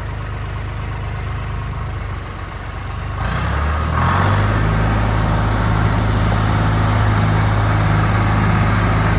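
John Deere 2240 tractor's three-cylinder diesel engine running steadily as the tractor drives slowly by, getting louder about three seconds in as it comes close.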